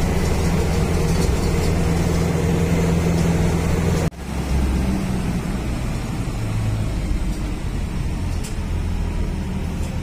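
City bus engine droning steadily as heard inside the moving bus. It cuts off abruptly about four seconds in, replaced by a quieter, steady low engine hum.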